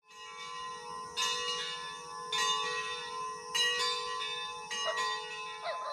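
Church bell ringing, struck again about every second and a quarter, each strike ringing on and overlapping the next.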